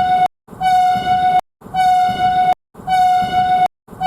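A railroad EAS-style alarm: one steady horn-like tone sounded over and over in blasts about a second long, with brief gaps between them.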